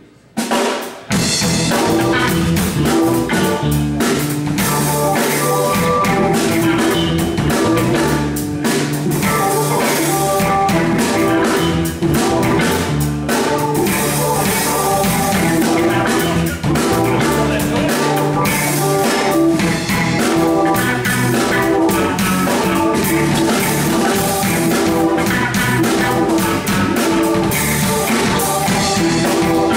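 Live funk-fusion band playing: electric bass, drum kit, electric guitar and keyboard. The music drops out briefly at the start and the full band comes back in about a second in, then plays on steadily.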